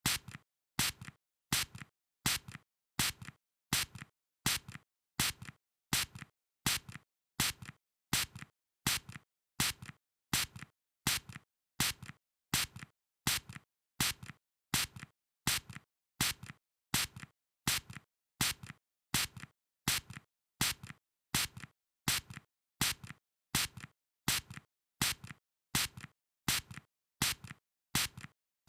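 A spray nozzle spraying in short, sharp hissing puffs, repeated about once a second. Each puff is a stronger spurt followed by a weaker, shorter one.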